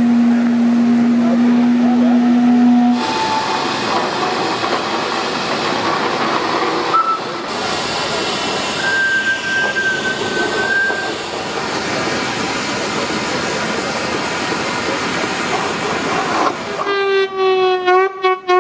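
Steam whistles on steam traction engines sounding over a steady hiss of escaping steam. A low whistle is held for about three seconds at the start, short higher toots follow, and near the end a whistle with a wavering pitch sounds in several short blasts.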